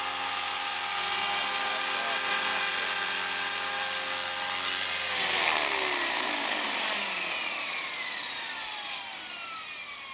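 Mini Titan E325 electric RC helicopter's motor and main rotor running at a steady pitch. About five seconds in, the pitch starts to fall and the sound fades as the rotor spins down after landing.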